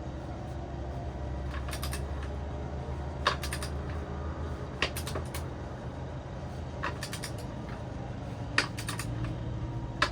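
Scattered sharp metallic clicks and knocks of a large wrench bar being fitted and worked on a motorcycle's rear axle nut, some in short clusters, over a steady low hum.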